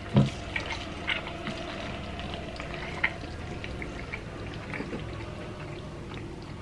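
Chopsticks stirring and lifting spicy instant ramen noodles out of a glass dish of sauce: wet, slippery noodle sounds with scattered small clicks. There is a brief voice-like 'mm' just after the start.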